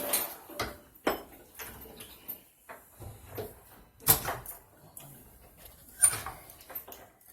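A series of knocks and scrapes from faucet parts being handled and set in place. The loudest come about four and six seconds in.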